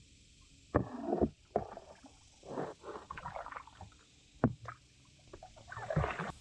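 Water splashing and sloshing around a small homemade raft as it is moved along, with several sharp knocks, the loudest about a second in and again past the middle.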